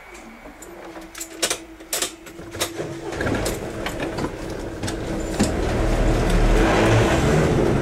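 Railway level-crossing barriers rising, a steady hum with several sharp clicks, then a car engine pulling away over the crossing, growing louder from about three seconds in.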